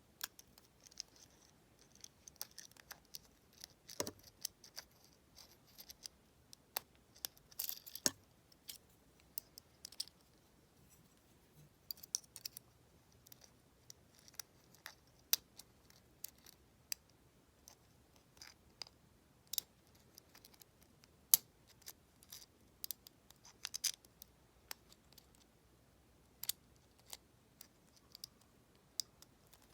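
Lock pick working the pins inside a deadbolt cylinder: scattered faint metallic clicks and short scrapes, with one sharper click about a third of the way through.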